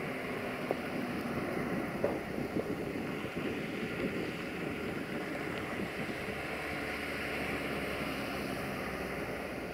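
Distant diesel locomotive running steadily as it approaches slowly, its rumble mixed with wind noise on the microphone and a few faint ticks.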